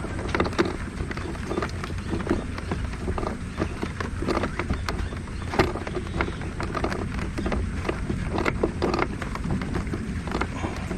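Low wind rumble on the microphone, with irregular clicks and knocks scattered throughout.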